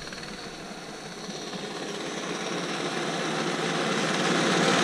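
Engine of a motorized snow tow (motor-dog) running, growing steadily louder.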